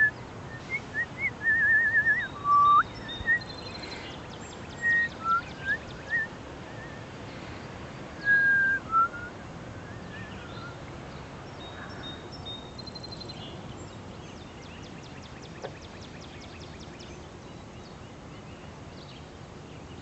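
A person whistling a run of short notes, among them a quick warble and a rising slur, over the first nine seconds or so. Faint high bird chirps and twitters go on behind.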